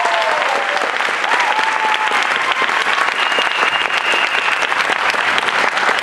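A theatre audience applauding loudly just after a song ends, with a few whoops near the start and a brief whistle partway through.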